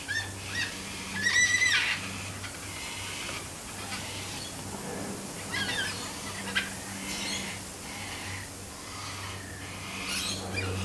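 Yellow-tailed black-cockatoo calling: one loud, short, harsh call about a second and a half in, then a few softer short calls spaced through the rest. A steady low hum runs underneath.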